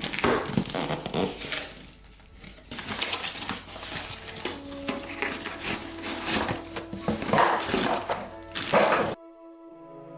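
Rustling and handling noise of a repair-stand box being unpacked: packaging crinkling with knocks and clicks, over soft background music. The handling noise cuts off abruptly about nine seconds in, leaving only the music.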